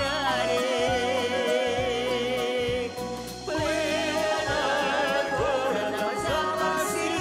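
A song performed by a vocal ensemble with a backing band: long held melody notes with vibrato over a steady bass beat, dipping briefly about three seconds in before the melody picks up again.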